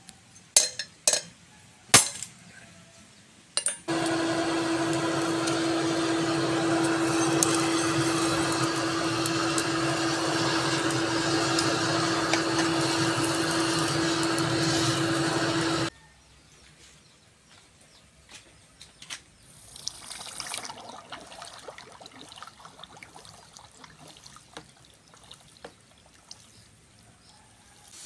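A few sharp hammer blows on a set tool held against the red-hot tip of a leaf-spring steel spear blade on the anvil. Then a steady electric whir with a constant hum runs for about twelve seconds and cuts off suddenly; this fits the forge blower fanning the fire.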